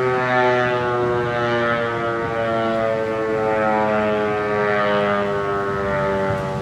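HOR Siro-Drone outdoor warning siren sounding its steady Alert signal: one continuous, unwavering tone with many harmonics.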